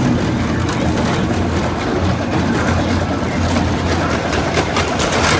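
Miniature ride-on railway train running along its track: a steady low rumble with scattered clicks.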